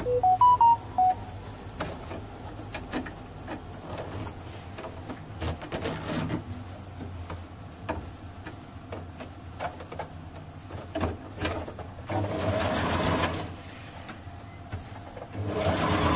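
Brother sewing machine stitching in two short runs, the first about twelve seconds in and the second near the end, with scattered clicks of the machine and fabric being handled before them. At the very start, a quick run of pitched beeps stepping up and down in pitch, the loudest sound here.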